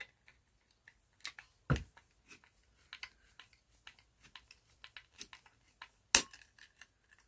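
Small clicks, taps and scrapes of hand work on wiring and screws, with two sharp knocks, one a couple of seconds in and a louder one near the end.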